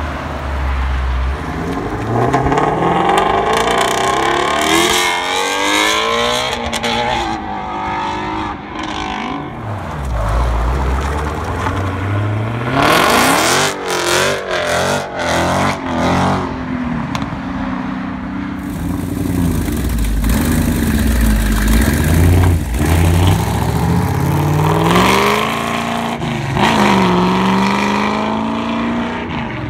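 Muscle-car V8s accelerating hard away one after another. First a Ford Mustang Shelby GT350's flat-plane-crank V8 revs up in rising sweeps as it pulls out. A Dodge Challenger follows midway, revving high with gear changes, and another car accelerates past near the end.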